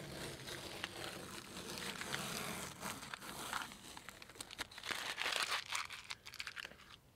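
Blue painter's masking tape being peeled off a truck's window trim, a crinkling, rustling sound with many small crackles as it pulls away from the paint and glass.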